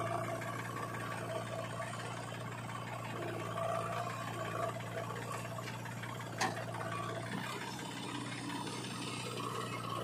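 Diesel engines of a Mahindra 265 DI tractor and a JCB 3DX backhoe loader running steadily, with one sharp knock a little past six seconds in.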